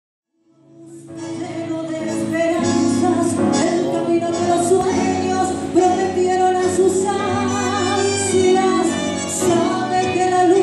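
Tango music fades in from silence within the first second: a woman singing over a band.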